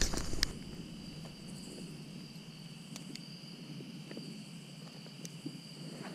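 Night insects chirring steadily as two even high-pitched tones, with a few faint clicks, most of them in the first half second.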